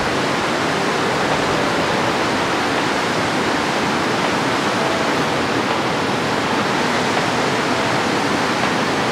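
Turbulent water rushing steadily through a dam spillway's outflow, an even, unbroken wash of noise.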